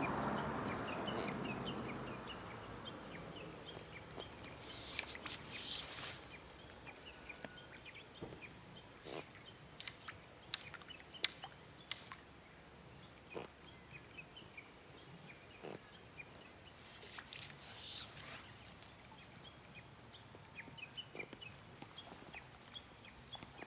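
Faint outdoor birdsong, many short scattered chirps, over a quiet background. A rushing noise fades away over the first two seconds, and there are scattered sharp clicks and two brief hissing rustles, one about five seconds in and one near seventeen seconds.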